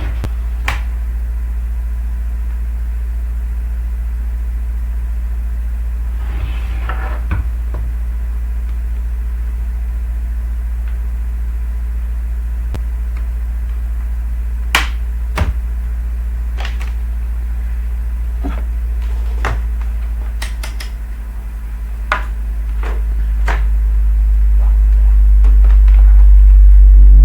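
Steady low electrical hum with about a dozen scattered clicks and light knocks, like small parts being handled; the hum swells louder over the last few seconds.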